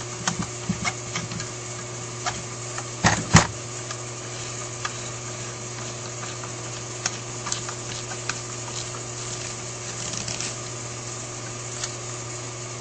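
Light clicks and taps of small metal carburetor parts and screws being handled and fitted during reassembly, with a louder double knock about three seconds in.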